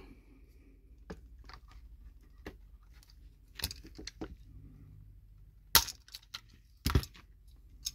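A riveting tool setting a rivet in a small toy-train part: a series of sharp clicks and knocks, with the two loudest strikes about six and seven seconds in.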